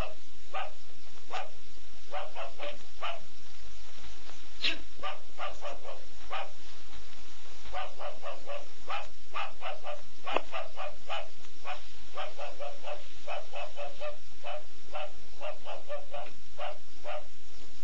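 A dog barking over and over in quick runs of short barks, over a steady background hiss.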